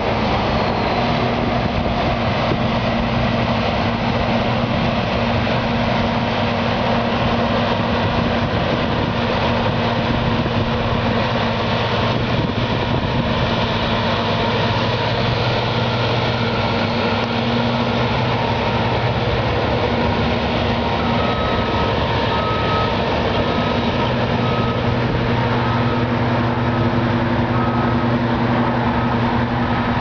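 New Holland combine harvester running steadily while harvesting, its engine and threshing gear giving a constant heavy hum. From about two-thirds of the way through, a short high beep repeats a little faster than once a second.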